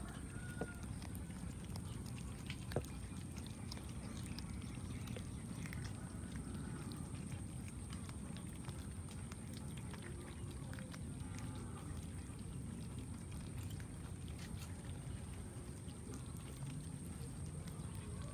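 Cats chewing raw fish, with frequent small wet clicks and smacks of teeth and tongue. Underneath runs a steady low background noise and a constant high-pitched whine.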